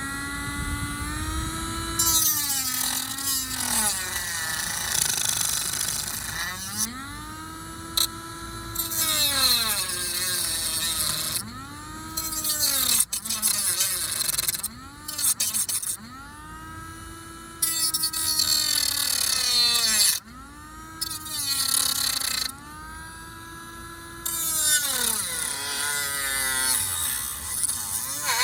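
Dremel rotary tool with a cutting disc, repeatedly spinning up and winding down in a rising and falling whine. It gives a harsh hiss in several stretches as the disc cuts into the bezel.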